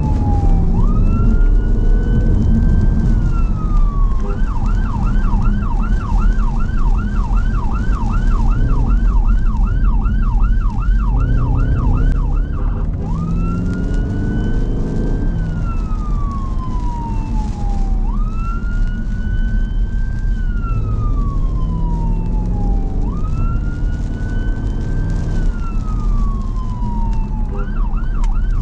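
Emergency-vehicle siren on a paramedic response car running on blue lights. It alternates between modes: a slow wail, then a fast yelp of about three sweeps a second for roughly eight seconds, then three slow wails that rise, hold and fall, and the yelp again near the end. Steady engine and road noise runs underneath, with the engine note rising a few times.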